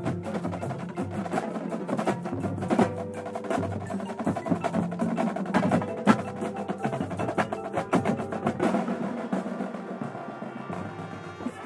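Drum and bugle corps drumline, with snare drums, multi-tenor drums and marching bass drums, playing a fast, busy percussion passage over sustained pitched chords. The drumming thins out near the end.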